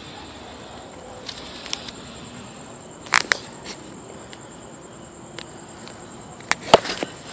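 A cricket trilling steadily in a high thin tone over faint background hiss, broken by two sharp clicks about three seconds in and a few more near the end.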